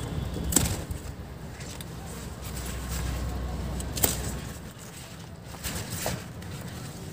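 Taro leaf stalks being handled and cut with a kitchen knife, giving a few sharp snaps: about half a second in, at about four seconds and at about six seconds. A low rumble underneath fades out a little past halfway.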